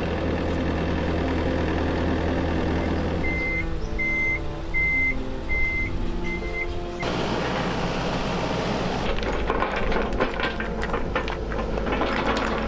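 Excavator engine running, with its travel alarm beeping about six times, roughly two beeps a second, midway through. From about seven seconds in the engine note changes and a run of clattering knocks comes over it.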